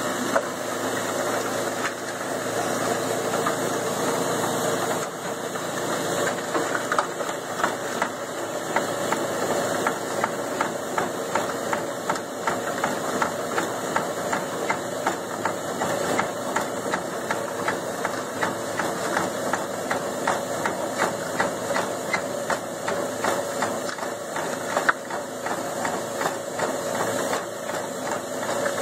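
Vintage Jaeger cement mixer running, its engine chugging steadily with a regular knocking about twice a second.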